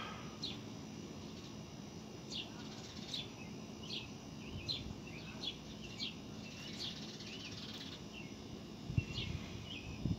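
Small birds chirping: short, high chirps one or two a second, over faint outdoor background noise, with a couple of soft low thumps near the end.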